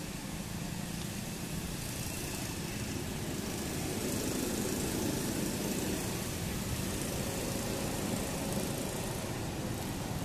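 A steady low engine hum under a broad, even hiss, with no distinct events.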